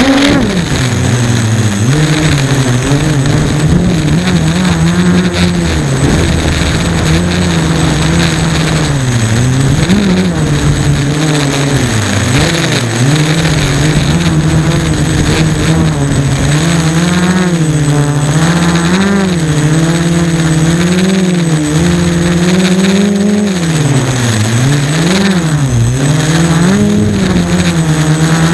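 F330 quadcopter's brushless motors and propellers whining up close on the onboard camera, the pitch climbing back sharply at the very start and then wavering constantly with throttle changes. There are a few deeper dips about a third of the way in and again near the end.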